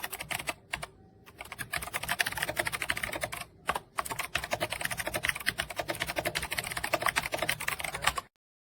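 Fast typing on an 8BitDo Retro mechanical keyboard: a dense run of key clicks with two short pauses, about a second in and near the middle, cutting off suddenly near the end.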